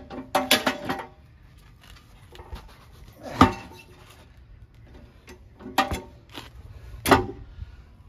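Steel manual tire bead breaker being lifted and handled against the wheel, giving a few separate metal clanks and knocks. The loudest comes about three and a half seconds in, and two ringing clanks follow near the end.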